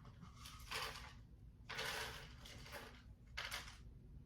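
Handling noises: four or five short rattling, clattering sounds, the longest a little under two seconds in, as small objects and containers are moved about.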